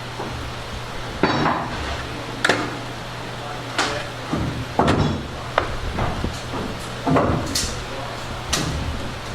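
Irregular knocks and clunks of wooden boards being handled and set down in a woodworking shop, about ten in all, over a steady low hum.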